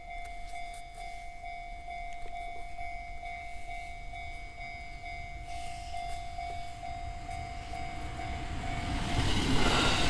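Japanese railway level-crossing warning bell ringing in a steady, rapidly repeating ding. About nine seconds in, the rising noise of an approaching train swells and covers it.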